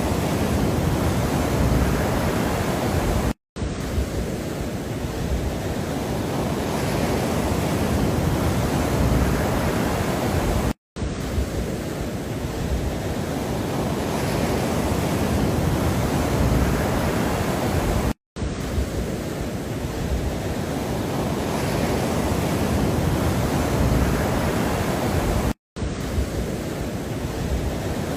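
A steady rushing noise track, heaviest in the lows and seemingly looped: it drops out to silence for a split second about every seven and a half seconds, four times.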